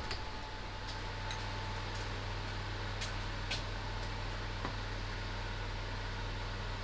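Steady low hum of background noise, with a few faint light clicks and taps of handling scattered through it.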